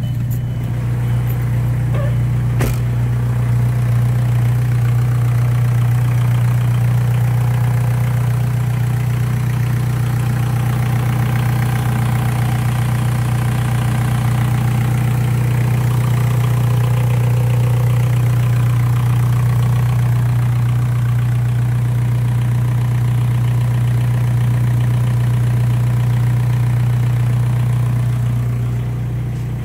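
2001 Volkswagen Jetta's 1.9 L TDI four-cylinder turbodiesel (ALH) idling steadily at about 1000 rpm, with no revving. The engine sounds a little fuller and closer through the middle stretch, then slightly quieter near the end.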